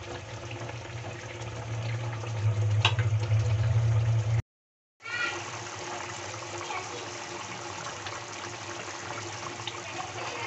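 Paneer curry gravy simmering at a rolling boil in a pan over high heat, bubbling and popping steadily. A steady low hum runs under it for the first few seconds, with a single clink just before the sound drops out for an instant at a cut.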